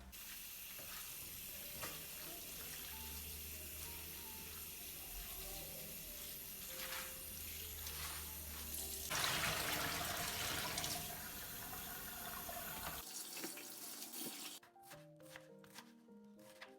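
Water running from a tap into a sink, heavier for about two seconds past the middle, then stopping a few seconds before the end, over soft background music.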